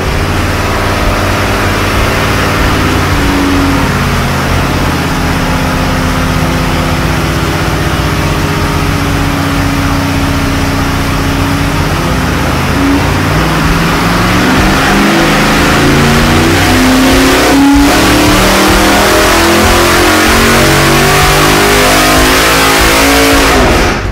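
440-cubic-inch Ford Windsor small-block V8 with eight individual throttle bodies running under load on an engine dyno, held steady near 2,000 rpm. About halfway through it pulls up smoothly and gets louder to about 5,000 rpm, then the throttle is cut abruptly at the end of the pull.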